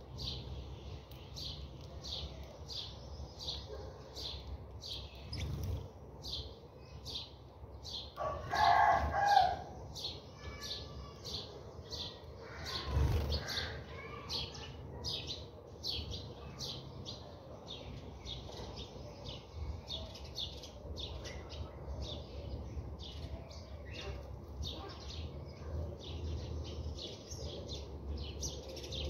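House sparrows chirping continuously, several short chirps a second. A louder, lower bird call lasting about a second and a half stands out about eight seconds in, and a brief low thump comes about five seconds later.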